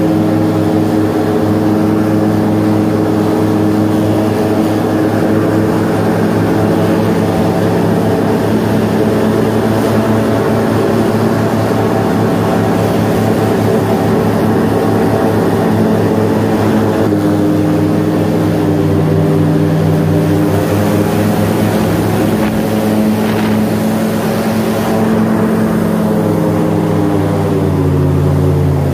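Airboat engine and propeller running steadily at cruising speed, a loud drone. The pitch drops slightly about halfway and falls near the end as the engine throttles back.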